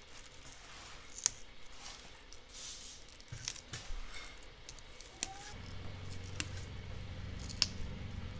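Fresh flowering chive stalks snapped by hand into short pieces: a handful of sharp, crisp snaps with the rustle of the bunch in between. A low steady hum sets in about two-thirds of the way through.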